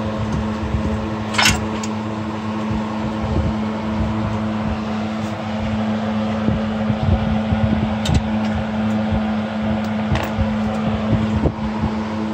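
Metal clicks and clinks of hand tools working the bolts of a scooter engine's casing during teardown, with three sharper clicks about one and a half, eight and ten seconds in. Under them runs a steady hum from some running machine.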